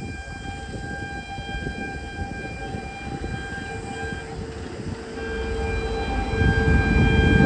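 Electric locomotive's multi-tone horn held for about four seconds, breaking off and sounding again a second later, over the rumble of the coal train, which grows louder near the end as it approaches.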